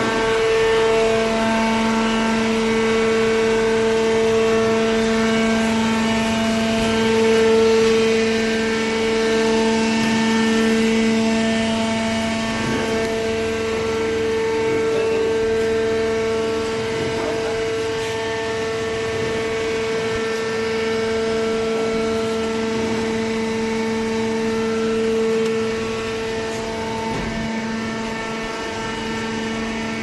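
Vertical hydraulic baler's electric motor and hydraulic pump running, a steady hum with a held pitched whine.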